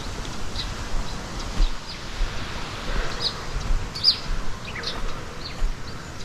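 Small birds chirping: short, high, falling calls every second or so, over a steady outdoor noise haze and a patchy low rumble.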